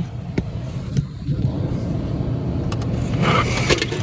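Steady low rumble of a running car heard from inside the cabin, with the air conditioning on. A few light clicks and a rustle come near the end.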